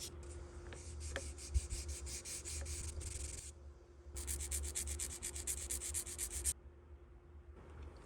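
Sanding a plastic model part: two runs of quick back-and-forth abrasive strokes, about seven or eight a second, each lasting a couple of seconds. There is a single light knock about one and a half seconds in.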